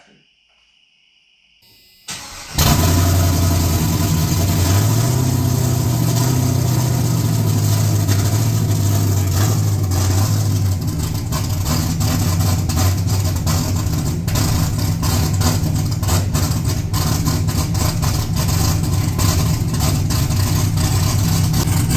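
Swapped LQ4 6.0-litre V8 with a Brian Tooley Racing cam, loud through its muffler. It cranks briefly and fires about two and a half seconds in, then runs at a raised idle that falls back to a lower, choppy idle about ten seconds in. This is a cold early start on a tune that is still being sorted out.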